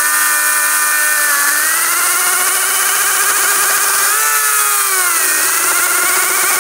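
ES Industries LCHS1454 54V cordless chainsaw running at full speed and cutting through an 8 cm log: a steady electric motor and chain whine. Its pitch drops for about a second around four seconds in as the chain bites under load, then climbs again.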